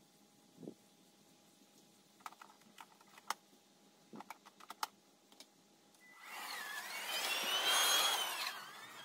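Several sharp clicks as the electric lawn mower is handled and set up, then its motor starts about six seconds in with a whine that rises in pitch and sags again as the mower is pushed into the grass.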